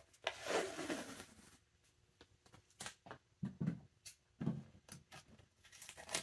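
Blue painter's tape being pulled off its roll with a ripping rasp lasting over a second, followed by scattered light clicks and a few dull knocks as the tape and roll are handled on the workbench.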